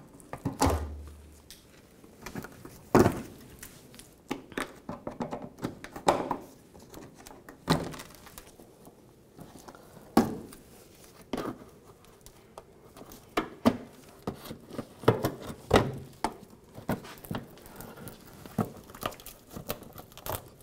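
Plastic push-pin retainers being pried out of a Chevrolet Silverado 1500's plastic inner fender liner with a trim tool: irregular clicks and knocks, a few louder ones several seconds apart.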